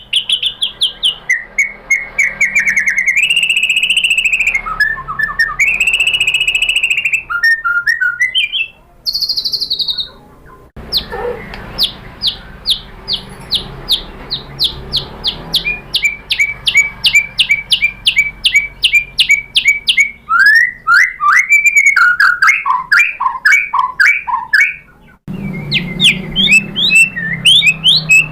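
White-rumped shama (murai batu) singing: long clear whistled phrases, then a fast run of short repeated notes at about three a second, then varied sweeping notes. The song changes abruptly twice, as if separate recordings were joined.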